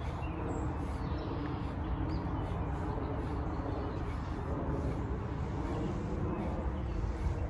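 Steady outdoor background noise with a low rumble and a few faint bird chirps.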